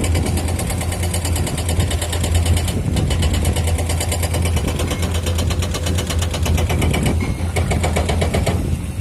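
Excavator diesel engine running under load while a hydraulic rock breaker hammers rapidly and evenly, several blows a second. The hammering stops shortly before the end.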